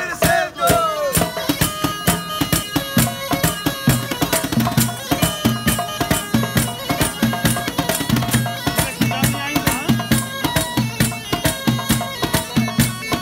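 Live street music: a bagpipe playing a melody over its held drone, with congas and a cajon keeping a quick steady beat.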